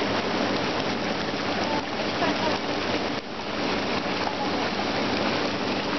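Zspas Poseidon hot tub's jets running, air and water churning and bubbling in a steady rush, with a brief dip about three seconds in.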